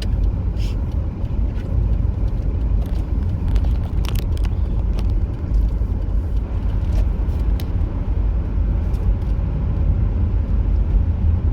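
Road and engine noise heard inside a moving car's cabin: a steady low rumble, with a few faint ticks.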